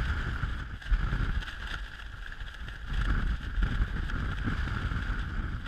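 Strong wind buffeting the microphone in a steady rumble, with the nylon tent flysheet rustling as its poles are worked loose.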